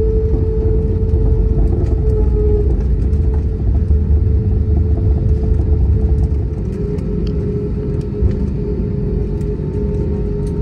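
Cabin sound of an Airbus A320neo taxiing after landing: a steady low rumble of the engines at idle and the wheels on the taxiway, with a steady hum tone over it. The rumble eases a little about six seconds in.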